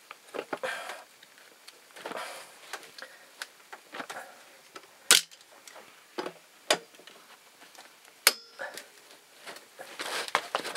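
Thin galvanized steel lid of a soldered ammo tin being torn open with locking pliers: metal scraping and tearing in short stretches, with sharp clicks and snaps, the loudest about five, six and a half and eight seconds in.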